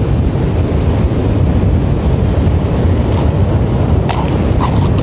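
Wind buffeting the microphone over ocean surf: a loud, steady low rumble, with a few faint brief clicks about three seconds in and twice near the end.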